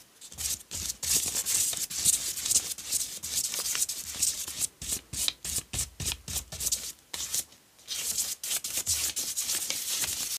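White gesso being spread over a paper journal page in many quick rubbing strokes, with a short pause about three quarters of the way through.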